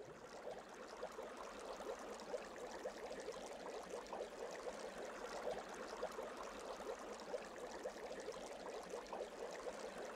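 Water bubbling and babbling steadily, a dense run of small quick bubble pops.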